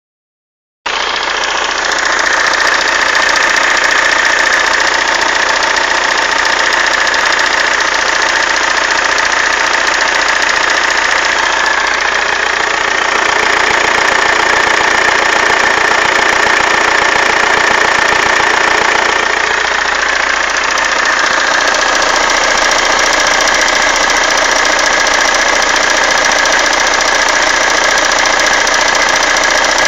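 2007 BMW E91 (3 Series Touring) engine running steadily, carrying a noise that the owner finds suspect.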